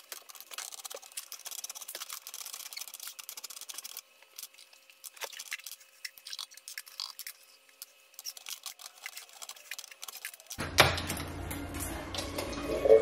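Light clicks and taps of metal cans and a can opener being handled at a stovetop. About ten and a half seconds in this gives way to louder clattering, with a sharp knock near the end as peas and can liquid spill onto the cooktop.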